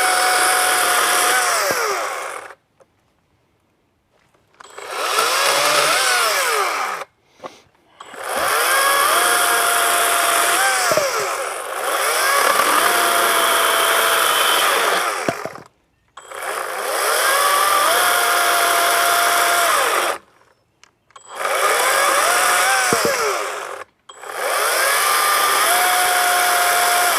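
Cordless electric chainsaw (Harbor Freight Atlas, brushless battery saw) cutting logs, its whine dipping in pitch as the chain bites the wood. It runs in bursts of a few seconds and stops abruptly about five times. The saw keeps shutting down, which the owner suspects is a battery problem even though the battery shows two bars.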